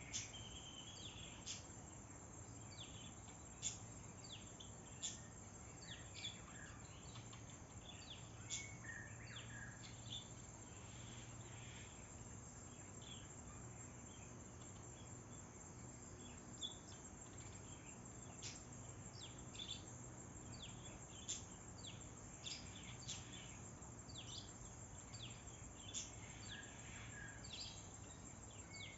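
Birds chirping outdoors: short, sharp, high calls come every second or so, with quieter chirps between them, over a faint steady background hum.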